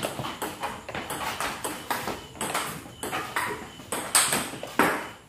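Table tennis rally: the celluloid ball clicks back and forth between the rubber paddles and the table in a quick, uneven run of sharp ticks. The loudest two come near the end, with hard forehand strikes.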